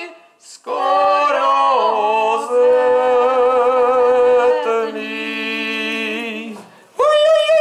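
A man and a woman singing a folk song together into microphones, in long held notes, with a short pause for breath just after the start and another shortly before a strong new note near the end.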